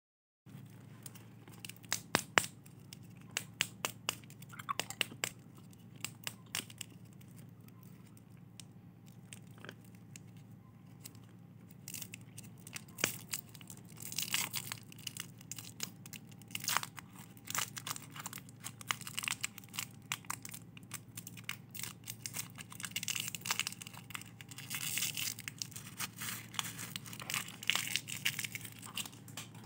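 A lollipop wrapper being crinkled and torn off by hand. Scattered sharp crackles come first, then denser crinkling and tearing through the second half.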